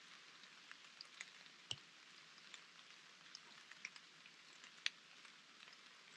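Near silence: a faint steady hiss with scattered soft ticks of light rain drips, two of them a little louder, at about a second and a half in and near five seconds.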